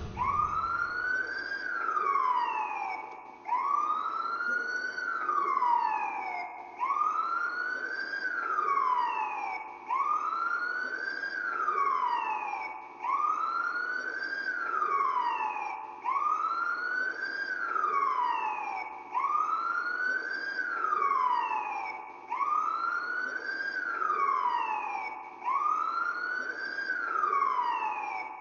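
Police siren wailing in a steady repeating cycle: the pitch climbs quickly, then slides slowly down, about every three seconds, nine times over.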